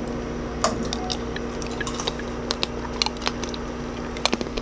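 Close-miked chewing of a tanghulu, sugar-coated fruit on a skewer: the hard, glassy sugar shell cracks and crunches between the teeth in sharp, irregular snaps, mixed with the wet squish of the fruit inside. The sugar coating has set so hard that it feels like it could break a tooth.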